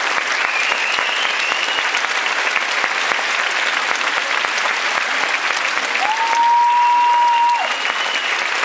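Theatre audience applauding at a curtain call: dense, steady clapping. About six seconds in, a single steady high note held for over a second rises above the clapping.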